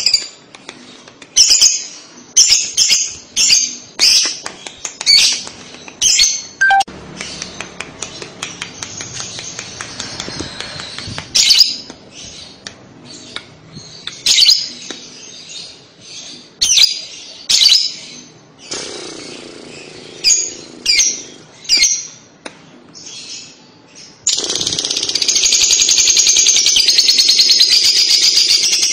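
Fischer's lovebird calling: sharp, quick chirps in irregular bursts, then, about 24 seconds in, a long unbroken rapid chatter, the lovebird's 'ngekek' song.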